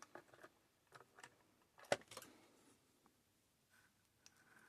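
Near silence with a few faint clicks, and one sharper click about two seconds in, from small objects being handled.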